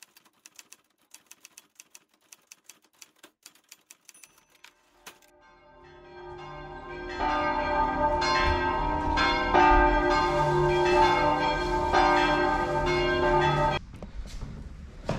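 A quick, faint run of typewriter key clicks, about four or five a second, for the first few seconds. Then church bells ringing from the neighbouring church swell in and ring loudly, cutting off abruptly near the end.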